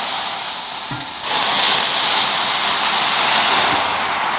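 Hot broth being poured from a stockpot into a steel hot pot, a steady splashing hiss that grows louder about a second in as steam rises off the pan.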